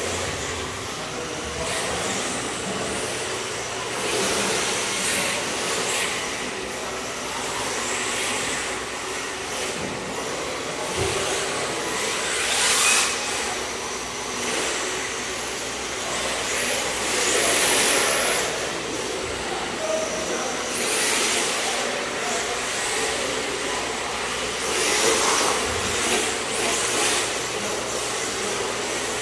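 Radio-controlled drift cars sliding around an indoor track: a steady hiss of hard tyres on the smooth floor, swelling every few seconds as a car passes close by.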